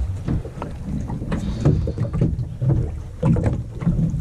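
Wind buffeting the microphone over water sloshing against a small boat's hull, a low gusty rumble.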